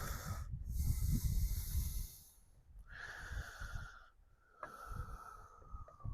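Husqvarna 372XP clone chainsaw being pull-started three times, the recoil rope whirring and the engine turning over without firing, a slowly falling whine trailing the last pull. It does not catch because the kill switch is in the off position.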